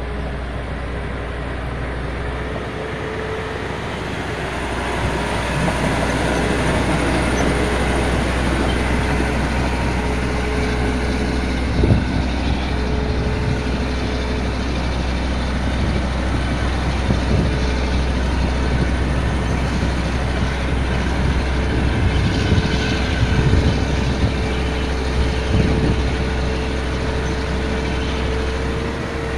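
Kaelble PR663B bulldozer's diesel engine running under way, with a steady whine over the engine noise. It gets louder about five seconds in, with a few sharp knocks, the loudest about twelve seconds in.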